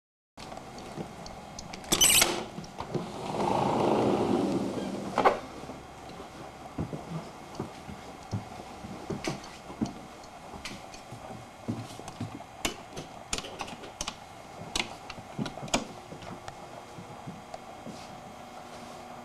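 Door latch rattling and a door swinging open, ending in a sharp click, then scattered light clicks and taps over a faint steady hum.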